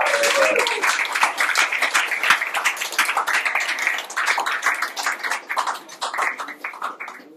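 Audience clapping and applauding as a live jazz number ends, with a gliding whoop at the very start; the clapping thins out and fades near the end.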